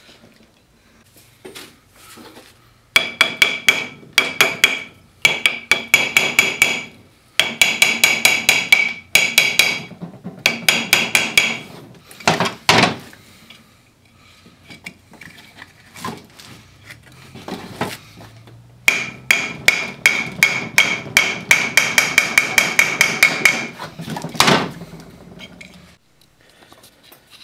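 Runs of quick hammer taps on the rust-seized pulley retainer on a Gryphon C-40 band saw's motor shaft, about four or five strikes a second, each with a short metallic ring. There is one heavier single blow about midway, and a long run near the end. The tapping is meant to free the rusted-on retainer, which does not come loose.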